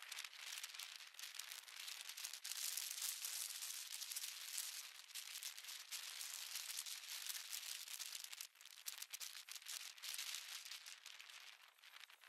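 Wind rushing and crackling over the microphone of a camera worn by a rider on an electric unicycle moving at speed: a fluctuating hiss with little low end, dipping briefly about eight seconds in.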